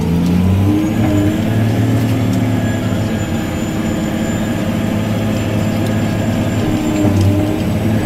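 Tractor engine running steadily under load, pulling a wide heavy harrow through wheat stubble.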